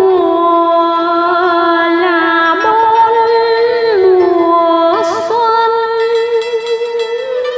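Slow background music: a melody of long held notes that glide from one pitch to the next, with a short hiss about five seconds in.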